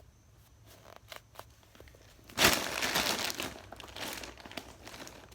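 Crinkling, rustling handling noise as squishy toys are picked up and moved about, with scattered small clicks and a louder stretch of rustling lasting about two seconds in the middle.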